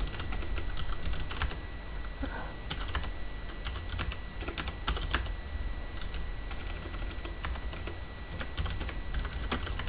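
Typing on a computer keyboard: irregular key clicks, several in quick bursts, over a steady low hum and a faint steady high-pitched tone.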